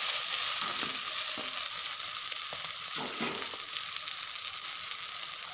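Boiled eggs and onions sizzling in oil in a pan, a steady frying hiss, with a few faint knocks about halfway through.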